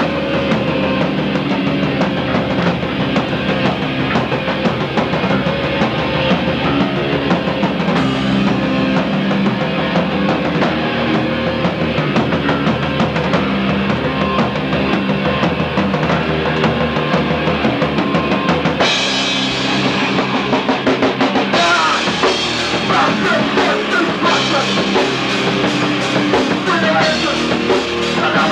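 A live rock band playing loud: a full drum kit with cymbals and bass drum driving the song, with guitars. The song moves into a new section about 8 seconds in and again about 19 seconds in.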